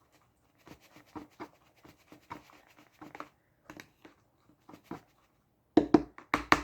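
Utensil stirring and scraping the potatoes in a frozen-dinner tray: soft irregular scrapes and clicks, then a quick run of louder taps near the end.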